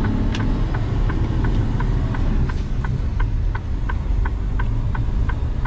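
Inside a lorry cab: the diesel engine runs with a steady low rumble while the turn-signal indicator clicks evenly, about three clicks a second.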